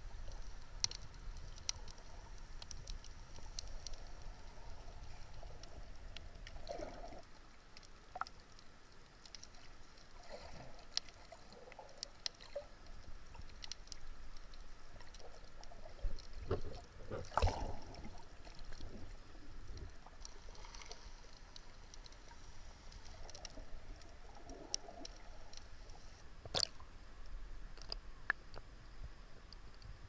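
Underwater ambience picked up by a submerged camera: a muffled low rumble of moving water with many faint scattered clicks and crackles, broken by a few short, louder gurgling swishes. The rumble falls away after about seven seconds.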